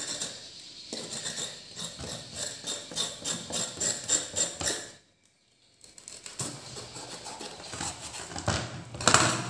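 Kitchen utensils clicking and tapping against dishes in quick succession, several light strikes a second, with a brief dead stop about halfway through.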